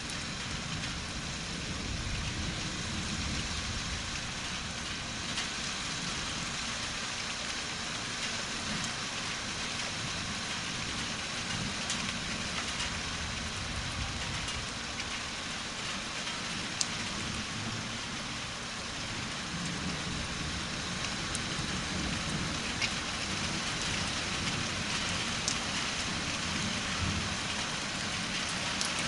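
Steady rain during a thunderstorm, an even hiss with a few sharp drip ticks. Low rumbles of distant thunder swell and fade underneath.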